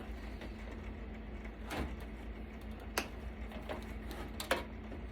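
A few separate clicks and light knocks as parts of an HP desktop computer are handled during disassembly, over a steady low hum.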